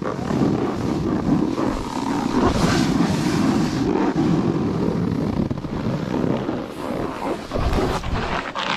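Wind rushing over the microphone and a snowboard scraping across snow as the rider slides downhill, a loud, steady rough noise.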